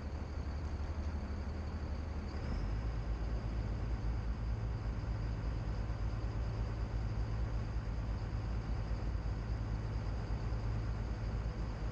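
Navy assault craft's engines running steadily, a low drone with a thin high whine over it. About two and a half seconds in, the engine note shifts and grows a little louder.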